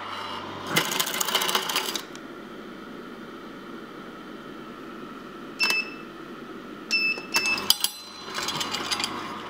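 Angel 5500 twin-gear juicer running with the wooden pusher forced down the feed chute into the stainless gears, grinding in bursts. It gives a short electronic beep about five and a half seconds in and two more about a second and a half later: its overload warning as it stops itself automatically.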